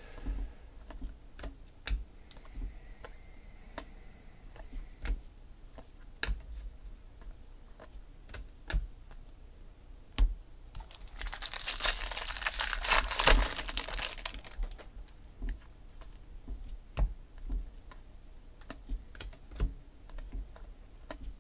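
Baseball trading cards being flipped through by hand, one after another: a scatter of light clicks as each card slides off the stack. About eleven seconds in comes a denser, louder run of rapid clicking and rustling that lasts about three seconds.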